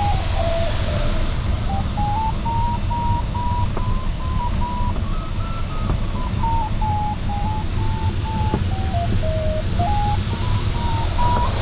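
A glider variometer's tone stepping up and down in pitch as the climb rate in a thermal changes, highest about halfway through and dipping lowest near three-quarters of the way, over the steady rush of air around an LS3 sailplane's cockpit.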